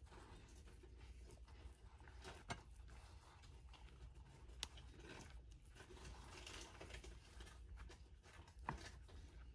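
Faint soft rustling and scrunching of flour as a hand packs it around an egg-dipped chicken cordon bleu roll in a bowl, with three light clicks.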